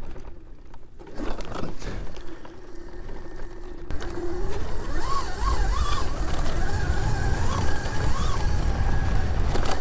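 Razor electric dirt bike being ridden: a whine from the motor and drive chain that rises and falls with throttle, over a low wind rumble on the microphone, getting louder about four seconds in.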